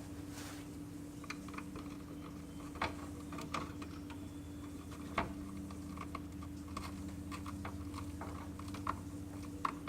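Scattered light clicks and taps of hands working wires and a light switch in a wall box, over a steady low hum.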